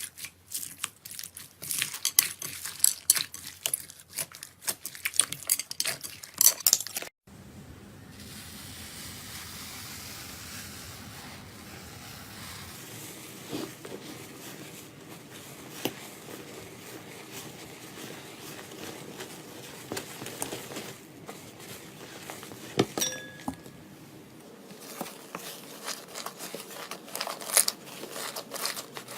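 Slime being handled and squeezed, making rapid crackling clicks and pops. About seven seconds in the sound cuts to a softer, steadier hiss with occasional clicks, and the dense crackling comes back near the end.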